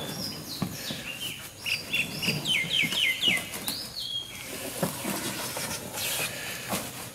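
A bird singing a run of short whistled notes, several falling quickly in pitch one after another in the first half. Scattered knocks and scrapes from a canoe being slid down the bank into the water.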